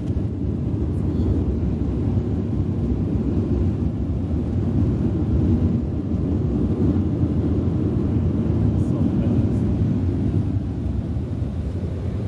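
Steady low rumble of a jet airliner's engines and airflow heard inside the passenger cabin just after landing, swelling a little midway.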